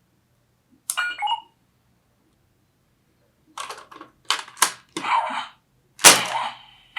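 Electronic sound effects from a Ben 10 Disc Ultimatrix toy: a short beeping chirp about a second in, then a quick run of sharp electronic bursts, and the loudest blast about six seconds in, trailing off.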